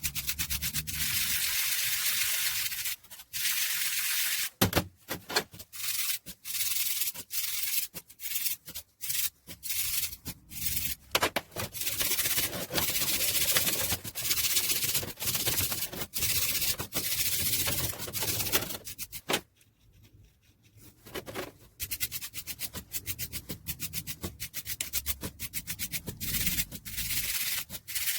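Hand sanding: abrasive rubbed back and forth in uneven runs of strokes, stopping briefly about two-thirds of the way through, as rust is cleaned off the parts of an old hand drill.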